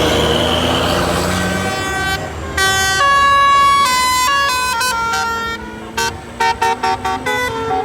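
Telolet basuri multi-tone bus horn playing a tune: after about two seconds of engine and traffic noise it sounds a run of stepped notes, then a quick series of about six short blasts near the end.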